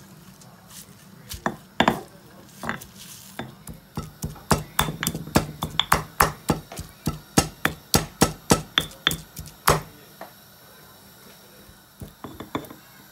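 Stone pestle pounding mint leaves and green chillies in a marble mortar: a run of sharp knocks, about three a second, lasting some eight seconds, then a few more knocks near the end.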